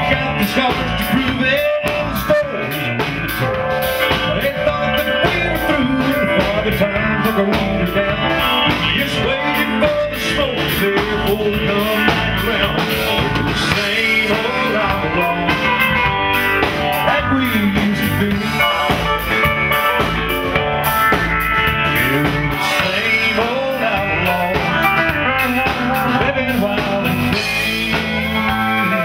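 Live country band playing: a male lead singer sings over guitars and a drum kit.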